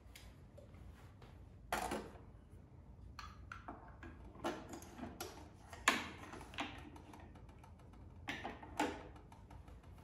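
Handling sounds from setting up a small Moritz espresso machine: a scattered series of light clicks, clinks and knocks as parts such as the portafilter and glass carafe are fitted and the lid on top is handled, the sharpest knock about six seconds in.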